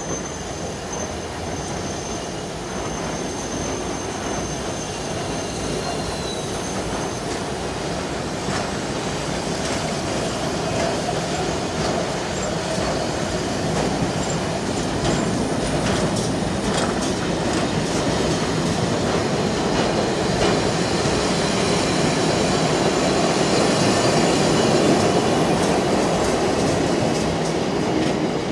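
Freight train wagons rolling past close by: a steady rumble of wheels on rail with clattering clicks over the rail joints, growing louder through the pass and easing off right at the end as the last wagons go by.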